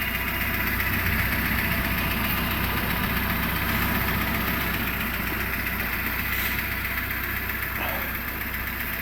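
First-generation Renault Logan engine idling steadily about five minutes after a cold start. The rustling, chattering knock it makes when cold has almost died away as it warms.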